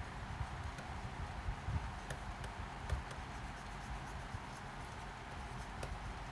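Light, irregular clicks and taps of a stylus writing on a tablet screen, over a steady hiss and low rumble.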